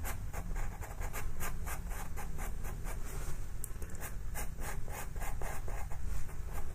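Pastel pencil scratching over textured paper in short, quick shading strokes, about four a second.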